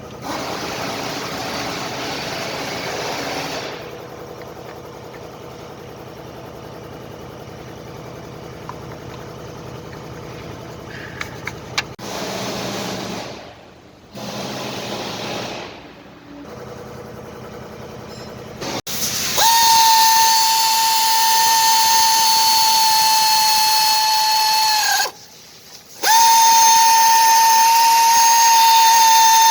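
Hissing bursts, then a high-speed power tool running with a steady high-pitched whine in two long runs with a brief stop between.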